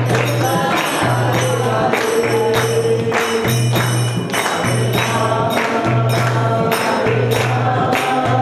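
Devotional group singing with jingling hand percussion struck about twice a second over a repeating low bass note.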